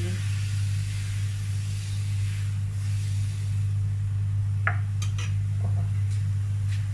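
A steel ladle spreading crepe batter on a flat griddle, with a few light clinks of the ladle against the pan and the batter bowl about two-thirds of the way through. A steady low hum runs underneath.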